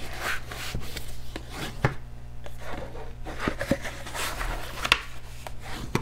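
Bone folder rubbed along the score lines of cardstock to crease the folds: a series of short scraping strokes with scattered taps as the paper is handled.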